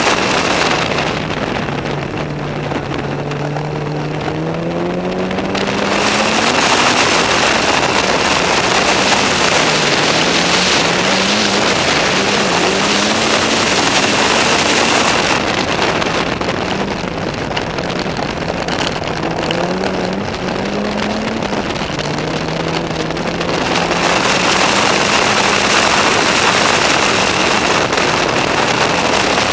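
Mitsubishi Lancer Evolution VII's turbocharged four-cylinder engine driven hard at racing pace, its revs climbing in steps through the gears, under heavy wind rush on the outside-mounted microphone.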